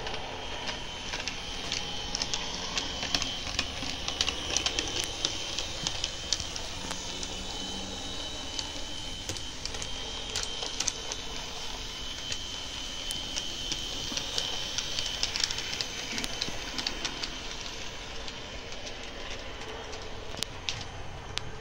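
Model railway train running on the layout: a small electric motor's steady high-pitched whine with irregular clicking of wheels over rail joints and points.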